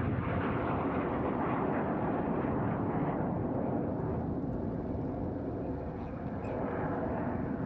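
BAE Hawk T1 jet trainers flying over in formation: a steady jet roar with a deep rumble, easing slightly for a moment about six seconds in.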